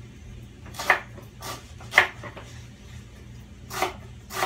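Kitchen knife slicing through lemongrass stalks onto a wooden cutting board: about five crisp chops at an uneven pace.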